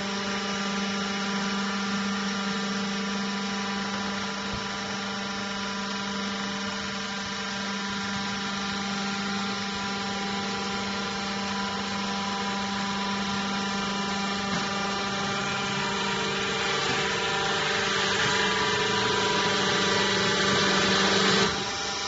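Vertical hydraulic baler's electric motor and hydraulic pump running with a steady hum while the ram drives the press plate down, compressing a load of cardboard. The sound grows louder over the last few seconds and cuts off suddenly near the end.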